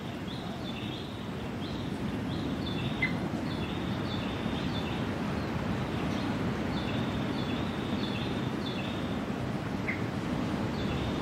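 Short high bird chirps repeating every half second or so over a steady low rushing outdoor background.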